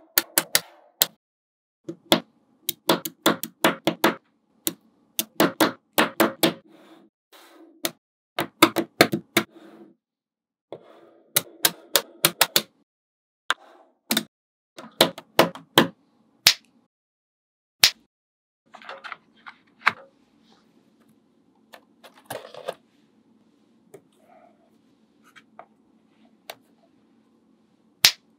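Small neodymium magnet balls clicking and clacking as strips of them are snapped together and pressed onto a model. The clicks come in quick clusters with short pauses, and grow sparser in the second half.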